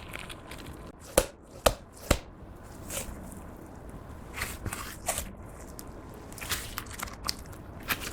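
Clear slime being squished and folded by hand, making soft sticky crackles. Three sharp pops, the loudest sounds here, come about a second in, typical of air bubbles bursting in the slime.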